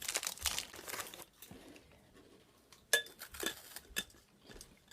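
Plastic snack wrapper crinkling as a packet of Japanese waffle cakes is handled and opened, dying down after about a second, followed by a few sharp clicks and crackles around three seconds in.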